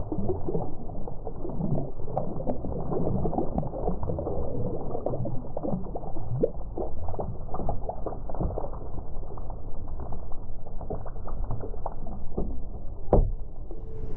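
Muffled water splashing and pattering around a fishing kayak, a steady crackle full of small ticks, with one sharper knock about thirteen seconds in.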